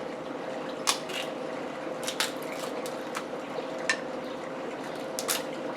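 Eating sounds: a few scattered sharp clicks and clatters of cutlery and dishes, over a faint steady hum.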